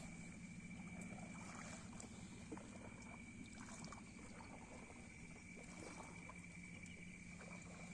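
Small fishing boat's engine running steadily at trolling speed, heard faintly as a low hum with a thin, steady high whine above it.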